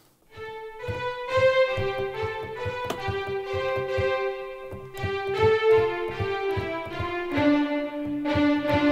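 Sampled violin section from EastWest Hollywood Strings (Hollywood Orchestra Opus Edition, 18 first violins) playing short, rapidly repeated bowed notes. The repeated strokes run in a fast even pulse while the pitch steps from note to note about every second, dropping to a lower note near the end.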